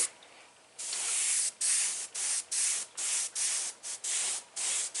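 Airbrush hissing in about ten short bursts, starting about a second in, as the trigger is pressed and released to spray paint lines.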